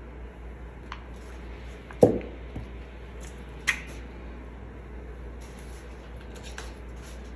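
Handling noise on a work table: one dull knock about two seconds in, a sharper click a couple of seconds later, then small clicks and rustles near the end, over a steady low hum.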